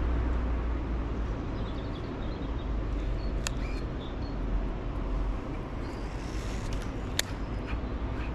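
Steady low outdoor rumble with two sharp clicks, one about three and a half seconds in and one about seven seconds in, while a lure is cast and retrieved.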